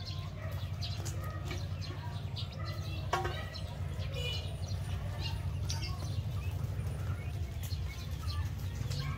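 Chickens clucking and calling, with scattered short chirps, over a steady low rumble.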